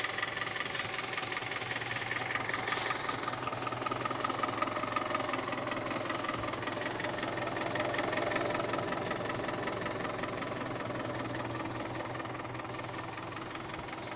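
A motor in a GAZ-24 Volga running steadily: a constant hum with a faint higher whine, unchanging throughout.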